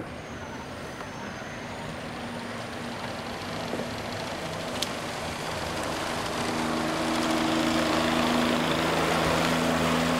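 Engine running with a steady low hum and rushing noise, growing louder through the second half.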